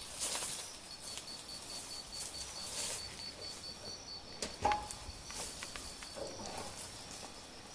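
Quiet woodland ambience: a faint high chirp repeats about four times a second for a few seconds, with a few soft footsteps and rustles.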